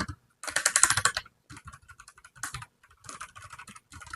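Typing on a ZIFRIEND 65% mechanical keyboard fitted with brown tactile switches: a quick, louder run of keystrokes about half a second in, then lighter, scattered key presses.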